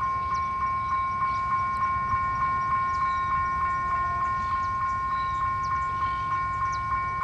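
Level-crossing warning bell ringing in an even rhythm, about four strokes a second, over the low rumble of an approaching GT22 diesel locomotive hauling a freight train.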